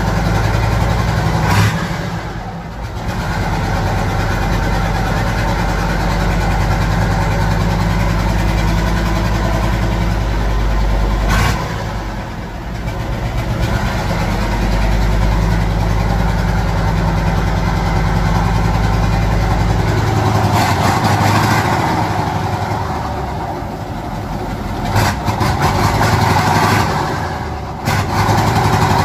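V8 diesel engine of a UD Nissan truck running as the truck is driven, heard from inside its open cab, its note dipping and rising briefly several times through the drive.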